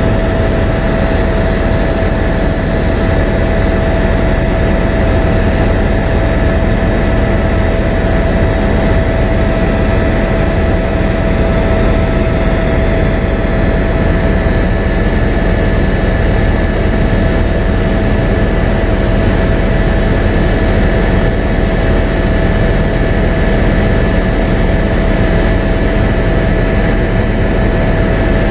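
Steady cabin noise of an aircraft in flight: a deep engine drone and rushing air with a constant high whine over it.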